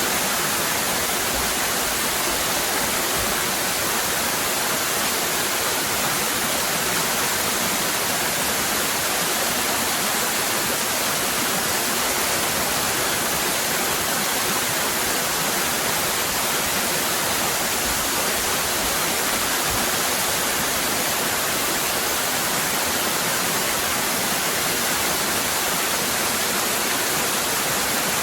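Waterfall cascading, a steady even rush of falling water.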